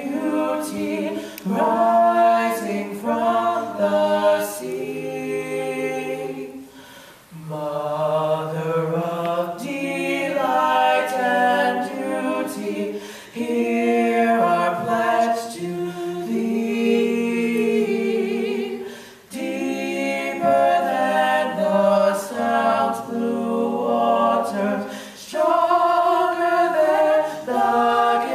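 Three men singing a cappella in close harmony through handheld microphones, with no instruments. The phrases are broken by short breaths, about every six seconds.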